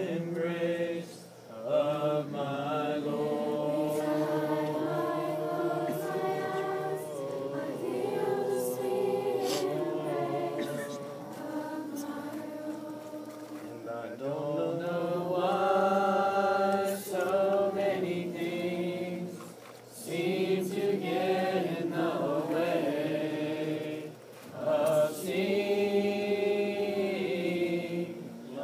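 A group of voices singing a slow worship song together, phrase by phrase, with short breaks between lines about a second and a half in, near twenty seconds and again about twenty-four seconds in.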